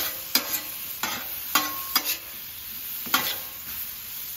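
Peach slices and butter sizzling on a hot steel flat-top griddle, while a metal spatula scrapes and clacks against the griddle about five times, tossing the peaches.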